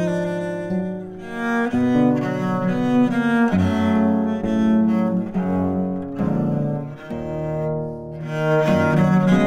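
Viola da gamba playing a line of held bowed notes in the low register, the notes changing every second or so, in an instrumental piece in Renaissance-Baroque style.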